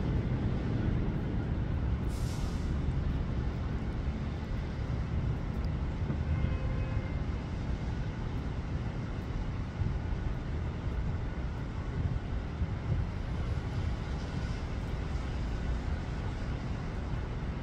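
Steady low rumble of storm wind, with a brief hiss about two seconds in.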